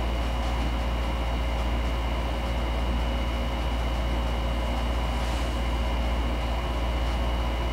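Room air conditioner running: a steady low hum with a faint constant whine over it.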